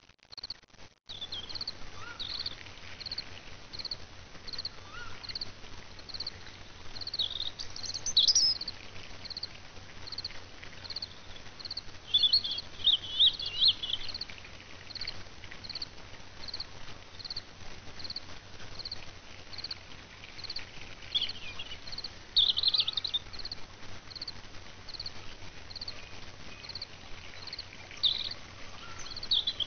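Nature ambience soundtrack: a cricket chirping at an even pace, about three chirps every two seconds, with short bursts of bird chirps now and then.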